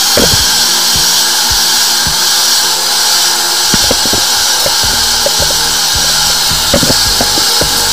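Drain-cleaning machine running steadily with a high-pitched motor whine while clearing a clogged urinal drain, with scattered short knocks; a low hum joins in about a third of the way through.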